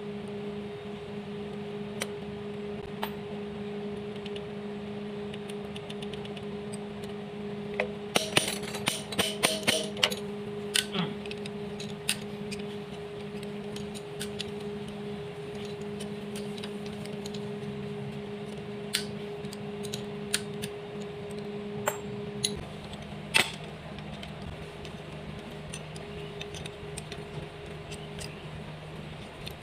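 Metal wrenches clinking against the rocker arms and adjusting screws of a Komatsu four-cylinder engine's valve train as the valve clearances are set. There is a quick run of metallic clicks about 8 to 10 seconds in, then scattered single clicks, over a steady low hum.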